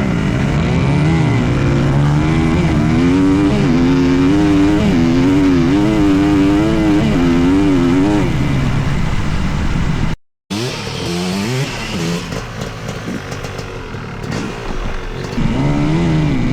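Dirt bike engine running under riding load, its pitch rising and falling in quick waves as the throttle is worked. About ten seconds in the sound cuts out for a moment; afterwards it runs lower and steadier, then revs up again near the end.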